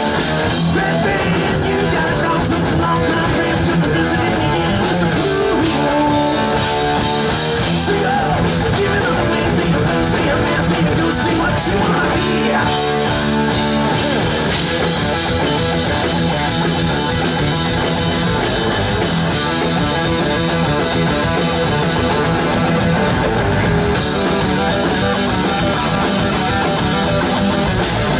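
Heavy metal band playing live at full volume: distorted electric guitars, bass guitar and a drum kit, with a melodic guitar line in places.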